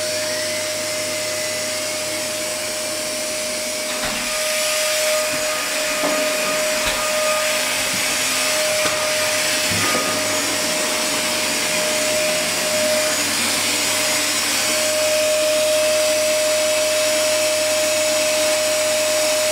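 Steady whirring of an electric motor and fan, with a constant whine, getting a little louder about four seconds in.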